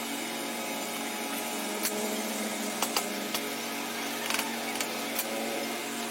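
Restoration workshop sounds: a steady hiss with a handful of sharp, irregular taps and clicks, like metal tools handled or struck while working on an old car battery.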